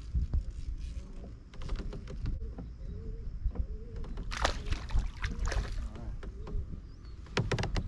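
Clicks, knocks and rattles of rod, reel and gear handled on a fishing kayak, over a low rumble of wind and water on the microphone, with a brief hissing rush about halfway through and another near the end.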